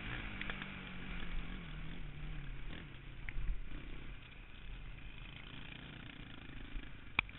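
KTM 525 XC quad's single-cylinder four-stroke engine easing off, its note falling in pitch over the first three seconds, then running quieter under a haze of rushing noise. A single sharp click near the end.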